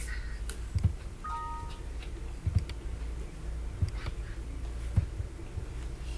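Scattered clicks of a computer mouse over a low steady hum, with a brief two-tone beep about a second and a half in.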